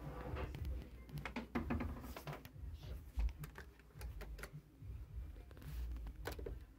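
Irregular light clicks and taps over a low rumble.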